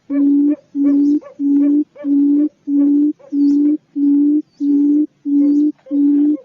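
Quail call: a low, steady hooting note repeated evenly, about one and a half times a second, each note about half a second long.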